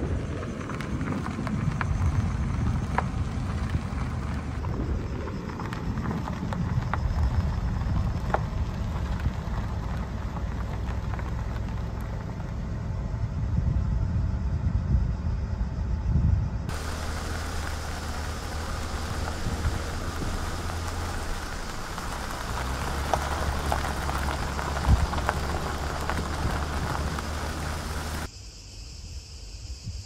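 Car driving on a road, heard from inside the cabin: a low engine and tyre rumble with a hum. About halfway through it gives way to a steadier hiss over a low hum.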